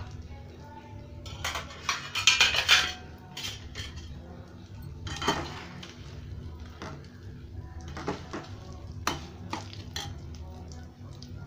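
Steel spoon scraping and clinking against a pan while stuffed brinjals are stirred and turned in oil. A dense run of scrapes and clinks comes about two seconds in, another scrape at about five seconds, then scattered single clinks.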